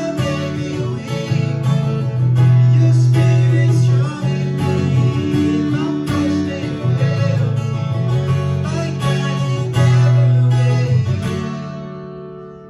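Acoustic guitar strummed, with a man singing a worship song; near the end the last chord rings out and fades away.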